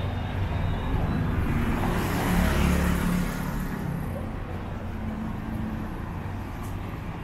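A motor vehicle passing close by on the road, its engine and tyre noise swelling and fading, loudest about two and a half seconds in, over steady street traffic.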